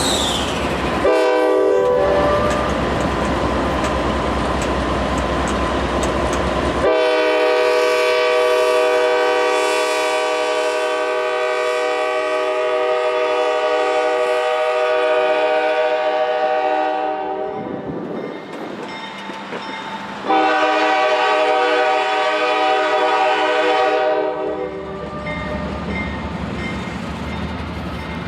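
A diesel freight locomotive's air horn blows one long steady blast of about ten seconds, pauses briefly, then blows a shorter blast of about four seconds, over the rumble of the passing train. A brief horn tap sounds about a second in.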